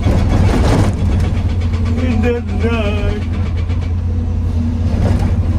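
Excavator's diesel engine running with a steady low drone. A loud noisy burst comes in the first second, and a wavering voice is heard about two to three seconds in.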